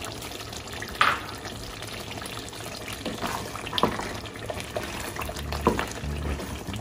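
A pot of thick stew simmering as a wooden spoon stirs it, with a few sharp knocks of the spoon against the pot.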